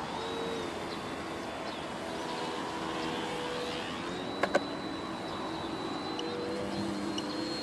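Radio-controlled Yak-55 aerobatic model airplane in flight, its motor and propeller droning with the pitch shifting as the throttle changes while it hovers and then makes a low pass. Two sharp clicks about four and a half seconds in.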